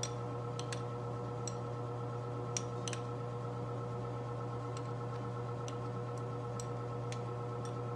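Furnace running with a steady hum, with scattered light ticks and clicks over it.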